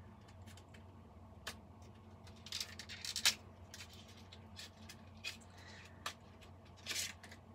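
Small cardboard and plastic cosmetic packaging handled by hand: scattered clicks, taps and crinkles, busiest about three seconds in and again near the end, over a steady low hum.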